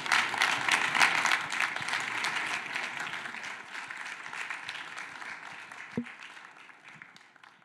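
Audience applauding, loudest about a second in and then gradually dying away, with a single knock about six seconds in.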